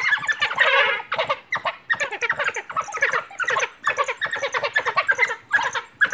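A pack of African wild dogs twittering: a dense chorus of short, high-pitched, bird-like calls overlapping one another, with only brief gaps.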